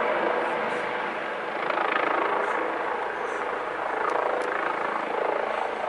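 Helicopter engine and rotor running, a continuous mechanical noise that swells and eases slightly.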